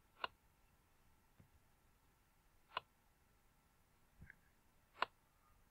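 Three single computer mouse clicks, roughly two and a half seconds apart, against near silence.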